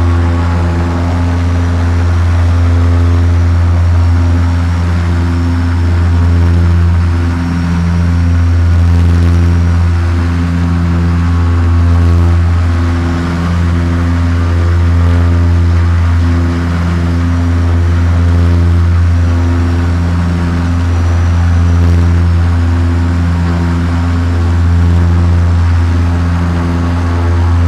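Airship engines and propellers droning steadily, heard from inside the gondola. Over a constant low hum the drone swells and fades about once a second, an even, slow throb.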